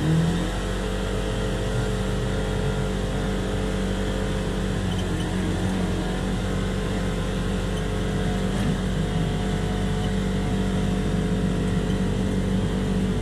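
Polaris Ranger XP 1000 side-by-side's twin-cylinder engine running under load at a steady pitch as the UTV gathers speed, heard from inside the cab with wind and tyre noise. It is pulling through a newly fitted CVT drive belt.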